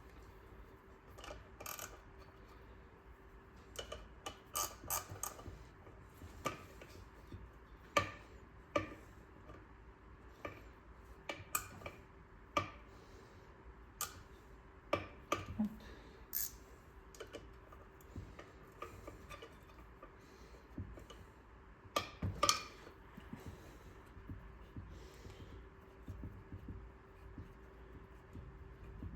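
Irregular clicks and metallic clinks of a wrench and small engine parts being handled during a small-engine teardown, over a faint steady hum.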